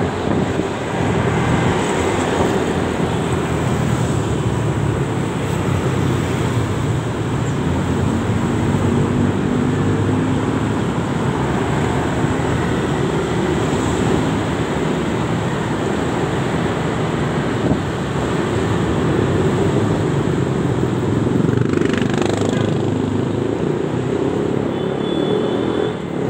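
Motorcycle engine running steadily at cruising speed, mixed with wind rushing over the helmet-mounted microphone and the hum of surrounding motorcycle traffic.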